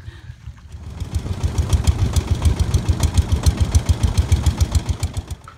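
Long-tail boat engine running in a rapid, even chug, growing louder about a second in and stopping abruptly near the end.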